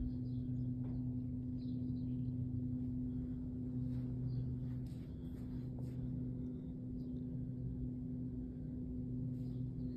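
A steady low hum made of a deep tone and a stronger one an octave above it, running unbroken, with a few faint soft ticks.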